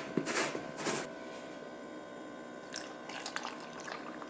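Faint kitchen handling noises: a few short rustles or scrapes in the first second, then small clicks about three seconds in, over a low steady room hum.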